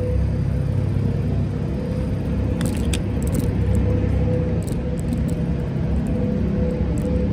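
Low rumble of wind buffeting the microphone and road noise while riding a bicycle, with a few short clicks or rattles in the middle.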